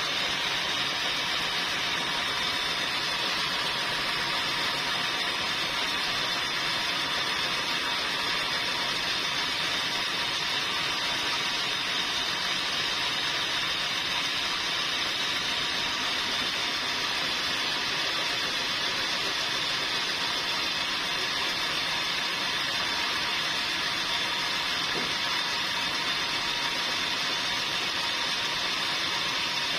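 Sawmill machinery running with a steady, even hiss-like noise that holds without a break.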